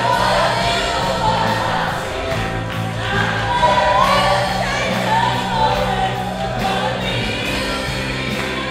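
Church choir singing a gospel song over steady low accompaniment, with voices sliding between notes.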